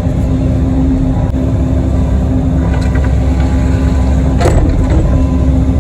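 Kobelco SK85 excavator's diesel engine running steadily under work, a constant hum over a low rumble, with one brief squeak about four and a half seconds in.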